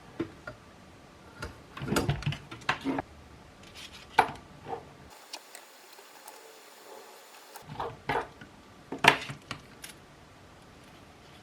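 Clicks, knocks and clinks of small hard parts being handled and set down, in irregular bursts with the sharpest knock about nine seconds in.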